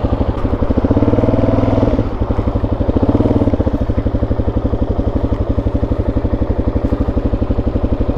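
Dual-sport dirt bike engine running under way, with a steady firing pulse. About a second in the throttle opens and the pitch rises, then it eases back about two seconds in.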